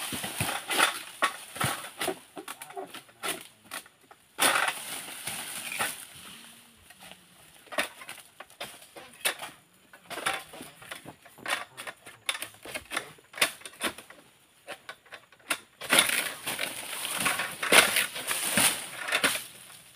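Oil palm fronds being cut with a long-poled Camel King 111 sickle (sabit): irregular cracks and scrapes as the blade hacks and tugs at the frond bases, with two longer spells of dry fronds rustling and crashing down, a few seconds in and again near the end.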